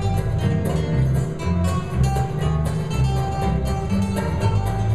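Bluegrass band playing live: strummed acoustic guitars keep a steady beat over a strong, walking bass line, with held melody notes above.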